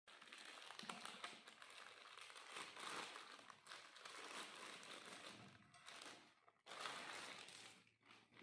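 Faint crinkling of a thin clear plastic bag being pulled off a new frying pan, uneven and continuous, with a brief lull about two-thirds of the way through.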